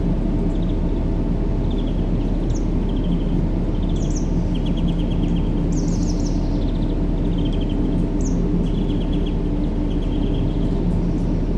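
Steady, deep white-noise sound with its weight in the low range, unbroken throughout. Small birds chirp in short trills above it again and again.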